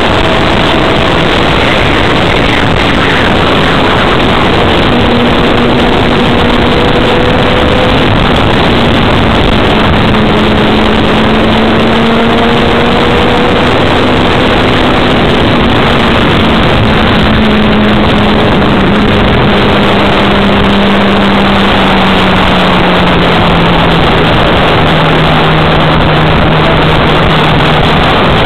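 Yamaha R6 inline-four sport bike riding at speed, with loud wind rushing over the microphone covering most of the sound. The engine note is faintly heard under it, holding steady and then gradually dropping in pitch over the last third as the bike eases off.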